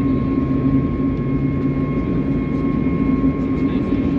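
Steady in-flight cabin noise of an Airbus A321 airliner: its jet engines and the rushing air run on evenly, with several constant hums over the noise. One low hum fades out about halfway through.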